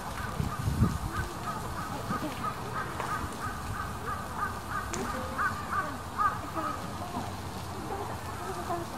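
A bird calling in a quick run of short repeated notes, about three a second, which stops about six and a half seconds in, over a faint murmur of voices.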